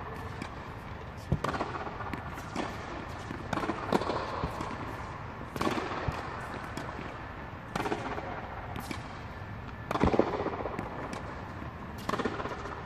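Tennis rally: balls struck by rackets and bouncing on a hard court, a sharp pop every second or two, each echoing under an air-supported tennis dome.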